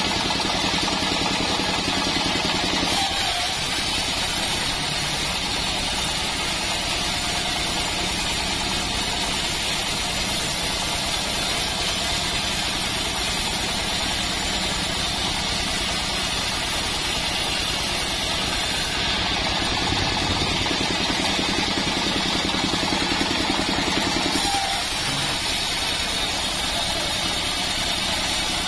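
Engine-driven band sawmill running steadily, its blade cutting lengthwise through a hard acacia log. The lower hum weakens about three seconds in, comes back for several seconds later on, then weakens again.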